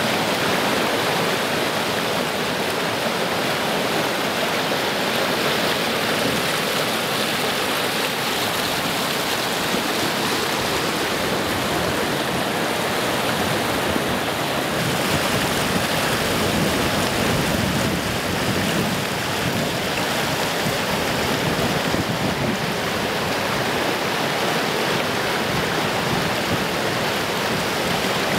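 Fast mountain river rushing through whitewater rapids over boulders: a steady, unbroken rush of water.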